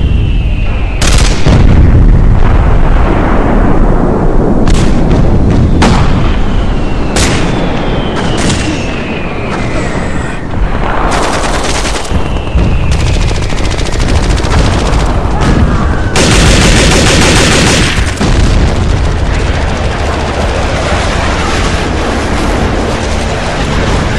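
F-16 fighter jets making fast, low passes: a loud, crackling jet roar with an engine whine that falls in pitch three times as the jets go by, broken by several sudden jumps.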